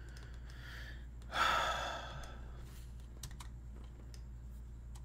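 A man sighing, one breathy exhale about a second and a half in, over a steady low hum. A few faint light clicks follow near the end.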